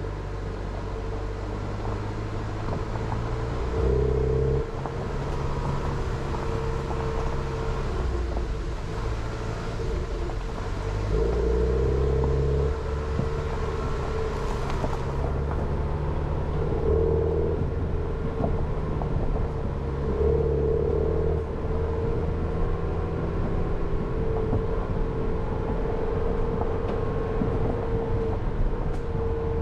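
Jeep Renegade driving slowly over a rough unpaved gravel forest road. The engine's pitch steps up and down several times with the throttle, over a continuous low rumble from the tyres and suspension on the loose surface.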